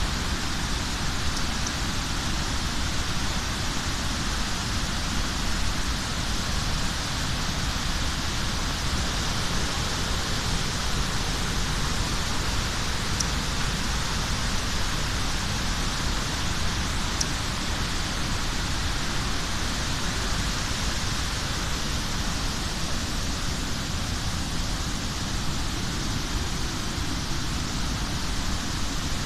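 Steady, unbroken rush of water falling in the Devil's Throat, the largest cascade of Iguazu Falls.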